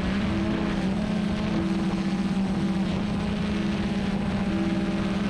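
Small quadcopter drone's propellers and motors humming steadily in flight, a constant buzzing drone-tone with rushing air noise.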